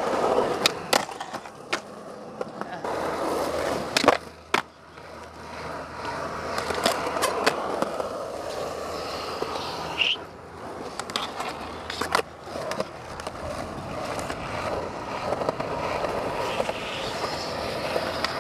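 Skateboard wheels rolling on smooth concrete, with several sharp clacks of the board hitting the ground. The loudest clack comes about four seconds in.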